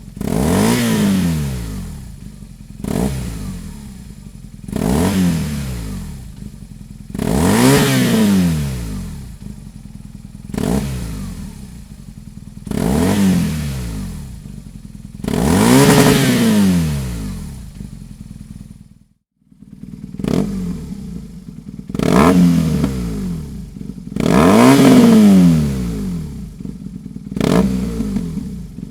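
BMW R 1200 RT's flat-twin boxer engine, breathing through a Dominator aftermarket exhaust silencer, revved in a series of short blips, each rising and falling, about ten in all. The sound cuts out briefly about two-thirds of the way through.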